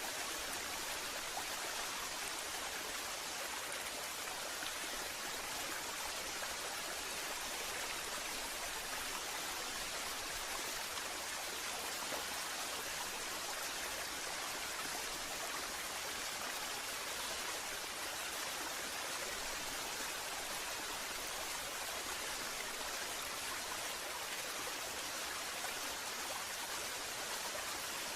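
Waterfall: water falling and rushing in a steady, even hiss with no change throughout.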